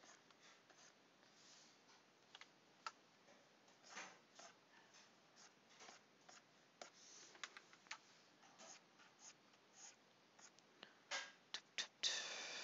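Faint scratching and tapping of a pen stylus on a graphics tablet, with scattered light clicks. A short, louder scratchy noise comes near the end.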